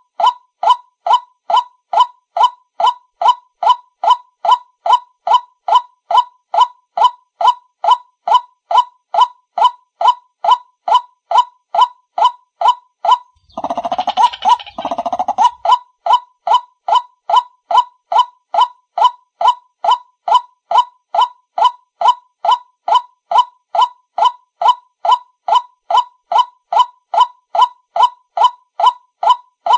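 White-breasted waterhen call played as a lure from a small speaker: the same short note repeated evenly, about two a second, like a loop. Near the middle a louder, harsher call lasting about two seconds breaks in over the loop.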